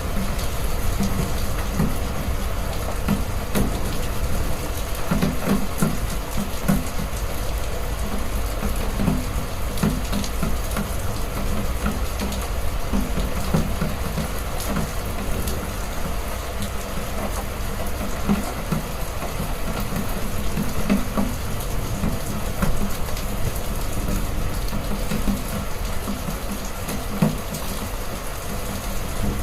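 Heavy rain pouring steadily, with irregular short low thuds scattered through it.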